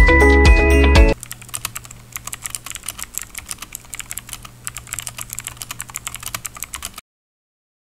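Intro music for about the first second, then a rapid run of computer-keyboard typing clicks, a typing sound effect, which cuts off about a second before the end.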